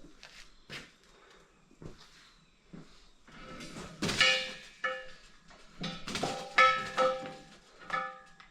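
Steel parts clanking together: a few light clicks, then about six sharp metal strikes from about three and a half seconds in, each ringing briefly like a bell.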